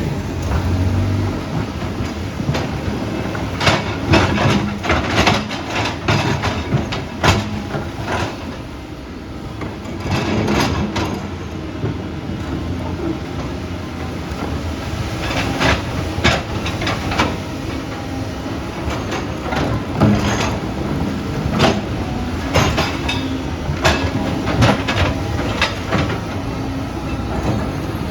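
Heavy earthmoving machine running, with a steady engine rumble and frequent irregular metallic clanks and knocks.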